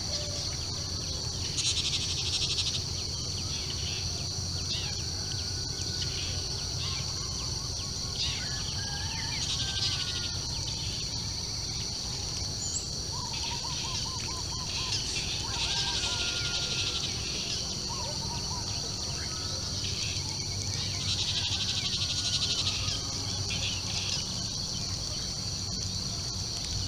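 Morning nature ambience: scattered birds chirping and trilling over a steady high-pitched insect drone, with louder buzzing trills every few seconds and a low steady rumble underneath.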